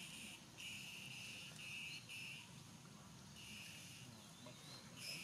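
Insects buzzing in a high, even drone that comes in stretches of one to two seconds with short breaks between them, over faint forest ambience.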